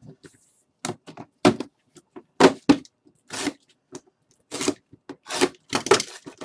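Sealed, shrink-wrapped cardboard trading-card boxes being handled, shuffled and set down on a table: a string of irregular light knocks and crinkly rustles.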